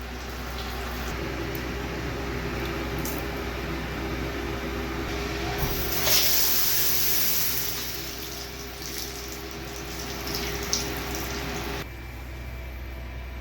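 Running water filling a container, with a louder gush for about two seconds midway; the flow is shut off suddenly near the end.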